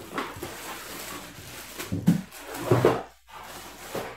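Plastic wrapping rustling and a moulded pulp packing tray scraping against the box as a plastic-wrapped stand mixer is worked out of its packaging, with louder scrapes about two and three seconds in.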